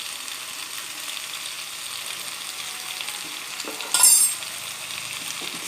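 Chicken pieces sizzling as they fry with spices in oil, stirred with a spatula, with one louder scrape against the pan about four seconds in.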